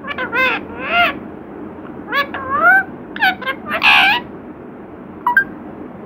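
Male rose-ringed (Indian ringneck) parakeet vocalizing in about half a dozen short, high calls that glide up and down in pitch, most of them in the first four seconds and one brief call near the end.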